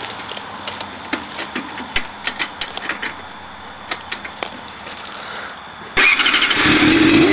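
A run of irregular light clicks and taps; about six seconds in, the 1987 Honda CBR600 Hurricane's inline-four suddenly starts and runs loudly through its Vance & Hines exhaust.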